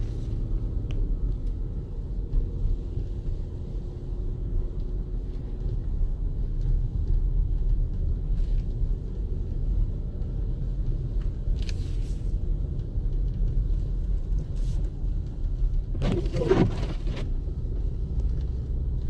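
Steady low rumble of engine and tyres heard inside the cabin of a 2014 Jeep Grand Cherokee Summit driving on a snowy road. A few faint clicks and a short higher, wavering sound come near the end.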